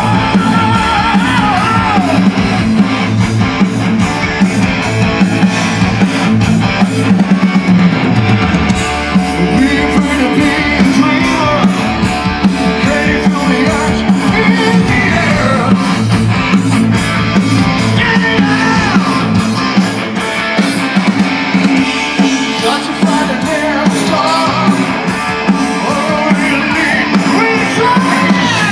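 Heavy metal band playing live: electric guitars, bass and drum kit with a singer's voice over them.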